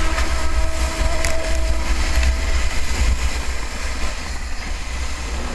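Plastic sleds sliding fast down an icy snow track, a steady scraping hiss, with heavy wind rumble on the microphone.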